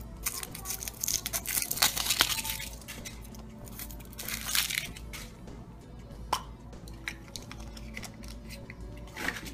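Foil wrapper on a Kinder Surprise chocolate egg crinkling and tearing as it is peeled off, in two spells of crackling. A sharp snap comes about six seconds in as the chocolate shell is cracked open, and another near the end.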